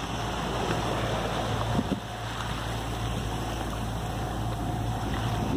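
Sailboat's inboard engine running steadily under way, with a low even hum, under the rush of wind and water.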